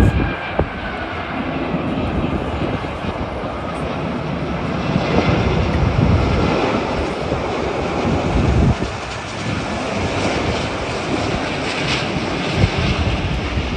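Airbus A380 four-engine jet airliner on final approach and flare, its engines giving a steady, loud rushing jet noise as it passes close by.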